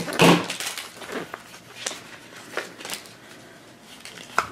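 Plastic tear strip being peeled off a small plastic toy capsule, then the capsule being prised open: scattered crackles and light clicks of plastic handling, with a sharp click near the end.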